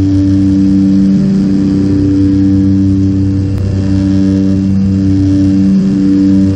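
Cabin of a de Havilland Canada Twin Otter on approach: the steady drone of its Pratt & Whitney PT6A turboprop engines and propellers, with a slow throb about once a second.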